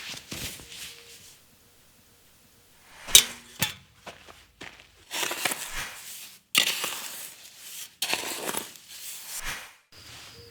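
Foley sound effects: a sharp crack about three seconds in, followed by a second smaller one, then three longer bursts of rough crunching noise that start and stop abruptly, as if cut together.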